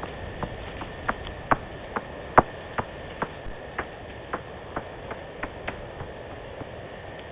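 Bats calling: a series of short sharp clicks, about two to three a second, loudest a little after two seconds in and dying away near the end.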